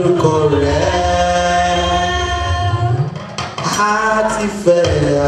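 Voices singing a slow church song in long held notes over a steady low musical backing, with a short break between phrases about three seconds in.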